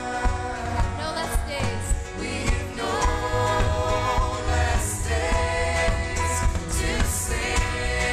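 Live contemporary worship music: a band with acoustic guitar, electric bass and keyboard playing under a woman's lead vocal, with a congregation singing along.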